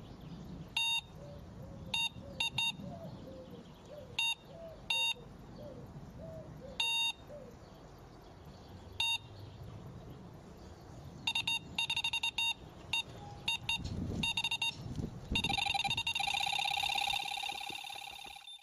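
Synthesized computer-style electronic beeps, a sound effect. Short single beeps come scattered at first, quicker clusters start about eleven seconds in, and a dense run of rapid bleeps fills the last three seconds. A faint low rumble and small chirps lie underneath.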